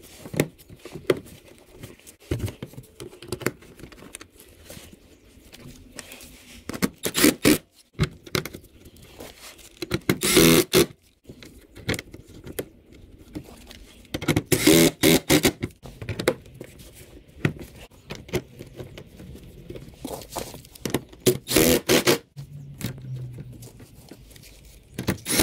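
Irregular plastic scraping, clicking and knocking as the lower edge of a Ford Fusion's front bumper cover and the plastic underbody shield are pushed into place and fastened, with several louder bursts about a second long.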